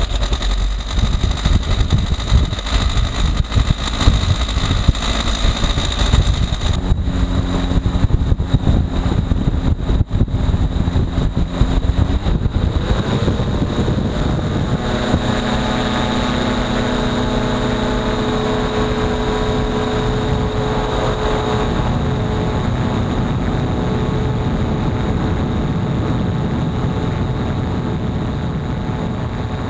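CFM Streak Shadow microlight's engine and pusher propeller: choppy and uneven at low power for the first dozen seconds, then rising sharply in pitch as it opens up to full power. It then runs steady at full power through the takeoff roll and lift-off.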